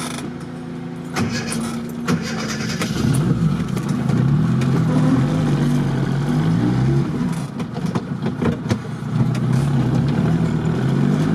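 Engine of a small ZAZ Zaporozhets-based 4x4 revving up and down under load in first gear, heard from inside the cabin: the revs rise and fall repeatedly, about three seconds in and onward, as the stuck car tries to rock itself out of mud with both axles locked, with scattered knocks and clicks.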